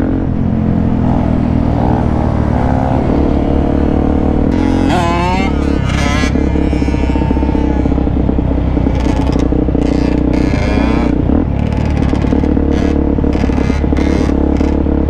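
Motorcycle engine running at a steady cruising speed beneath the rider, mixed with the engines of other dirt bikes riding in the group. Choppy wind buffeting on the microphone grows in the second half.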